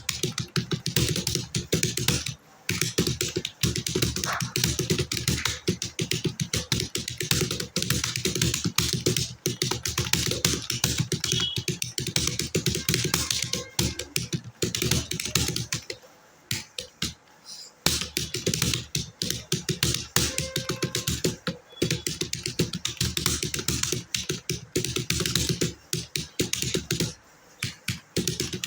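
Fast, continuous typing on a computer keyboard: a rapid stream of key clicks that pauses briefly about two-thirds of the way through and again near the end.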